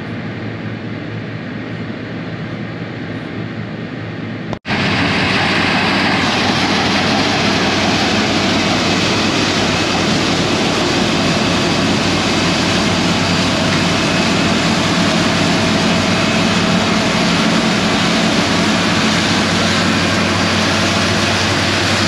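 Steady engine drone heard from inside a vehicle cab. About four and a half seconds in it cuts to a New Holland TX62 combine harvester close by, its engine and threshing machinery running loudly and steadily as it cuts beans.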